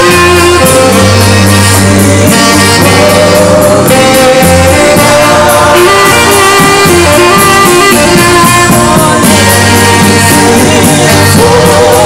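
Worship music: voices singing with a saxophone over a band with a steady beat and heavy bass.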